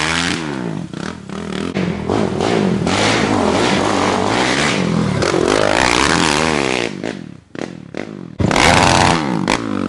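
Sport quad (ATV) engine revving hard as it is ridden along a dirt trail, its pitch rising and falling with the throttle. The engine drops away about seven seconds in, followed by a short loud rush of noise near the end.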